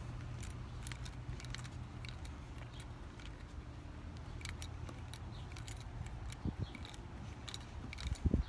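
Footsteps crunching in dry beach sand: irregular crisp clicks over a steady low rumble, with a few louder thumps near the end.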